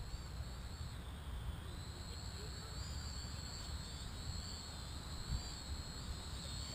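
Propel Cloud Rider toy quadcopter's motors whining high overhead, a thin steady whine whose pitch wavers slightly as the drone flies, over a low rumble.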